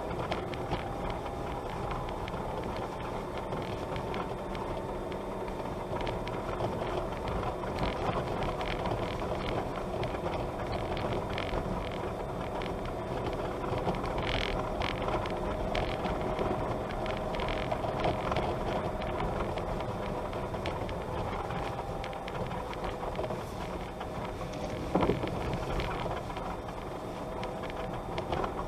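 A vehicle driving along a dirt road: a steady engine drone under road and tyre noise, with scattered clicks and rattles and one sharp knock near the end.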